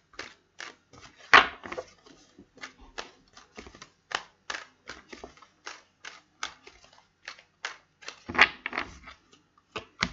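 A tarot deck being shuffled by hand: an irregular run of light card clicks and slaps, a few a second, with louder slaps about a second and a half in and again near eight and a half seconds.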